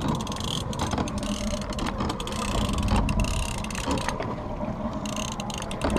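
A fishing reel ratcheting in a fast, irregular run of clicks as a hooked shark is fought on the line, over a steady low rumble.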